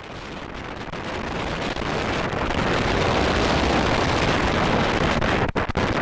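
Strong gale wind blasting across the camera's microphone: a loud, steady rush that swells in over the first two seconds, with a few brief dropouts near the end.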